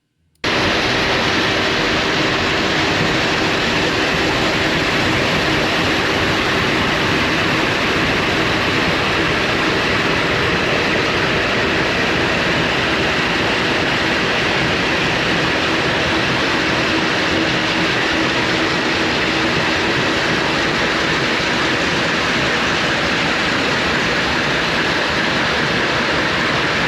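Hyper Grinder floor grinder running steadily with 30-grit diamond pucks, grinding the factory aluminum oxide finish off a pre-finished red oak floor. A loud, even grinding noise with a faint hum through it, cutting in just after the start.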